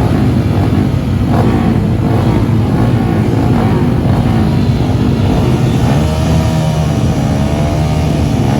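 Off-road vehicle engine running loud and steady, its pitch rising and falling as it revs, most noticeably in the last few seconds.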